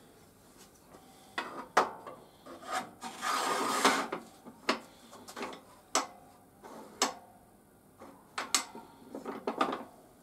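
Aluminium mitre gauge being fitted to the table saw and slid along its slot: a scraping rub of the bar in the groove about three seconds in and again near the end, with several sharp clicks and knocks of the gauge on the metal table top.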